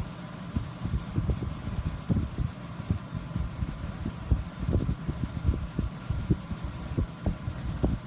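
Air from a window air conditioner blowing straight onto the microphone, making an irregular low rumble of thumping gusts, over the unit's faint steady hum.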